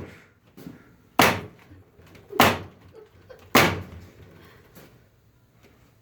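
Hand staple gun firing staples into a wooden pallet: three loud clacks a little over a second apart, with a couple of fainter clicks.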